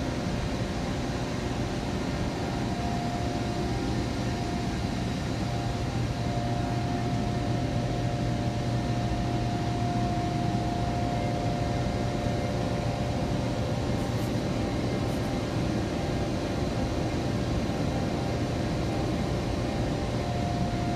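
Steady drone of running HVAC machinery: a low hum with a higher steady whine over a constant rushing noise.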